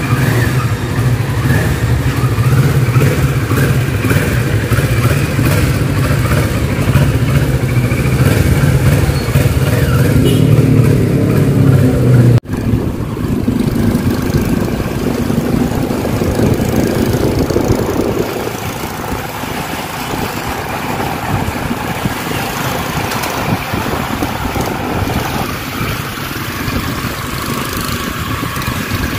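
Kawasaki Ninja 650 motorcycle's parallel-twin engine running, loud and continuous. There is an abrupt cut about twelve seconds in, after which it runs somewhat quieter with less low rumble.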